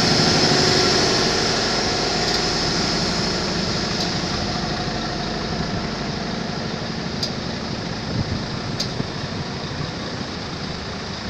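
An engine idling steadily with a high hiss over it, fading gradually.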